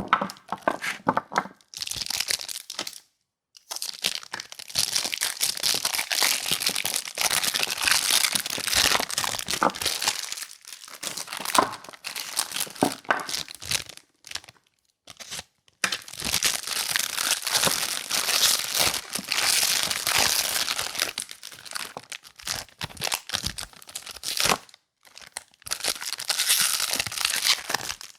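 Soap packaging being unwrapped by hand: wrappers crinkling and tearing in long spells, with a few short pauses.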